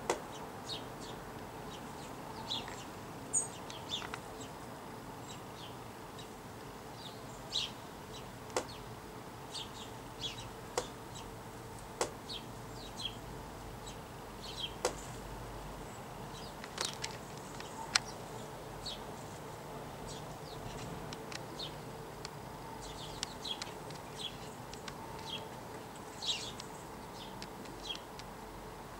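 House sparrows giving short, irregular chirps, with a few sharp ticks among them, over a faint steady hum.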